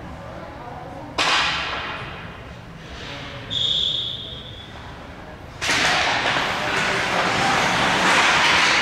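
Ice hockey game sounds: a sharp hit with a hissing decay about a second in, then a single referee's whistle blast of about a second. About halfway through, a loud continuous hiss of ice and rink noise sets in and holds.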